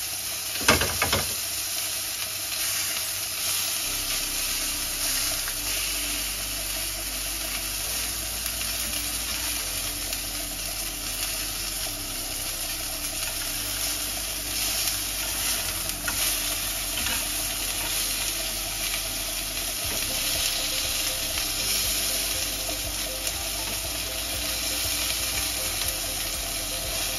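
Entrecôte steaks sizzling steadily in a hot non-stick frying pan. A few sharp knocks in the first second, from the tongs against the pan as the meat is turned.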